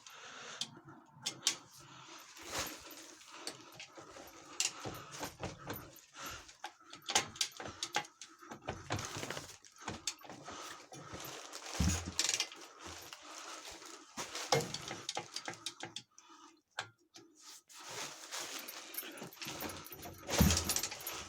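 Irregular light clicks, clinks and knocks of hands handling a 125cc pit bike while checking whether its gearbox is in gear, with a duller thump about halfway through and a louder one near the end; the engine is not running.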